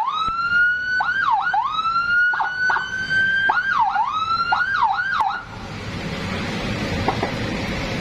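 Whelen electronic siren sounding: it rises to a high held note, then dips sharply and climbs back several times. It cuts off about five seconds in, leaving a steady hiss.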